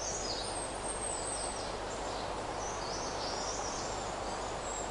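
Outdoor natural ambience: a steady hiss of background noise with short, high, thin chirps now and then, some falling in pitch.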